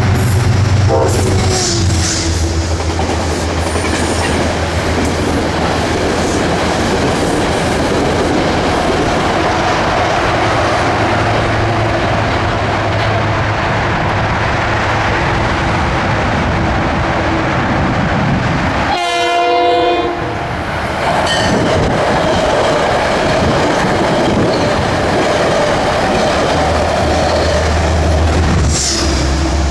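Metro-North train passing the station, its running noise loud and steady throughout. A short horn blast sounds about two-thirds of the way through.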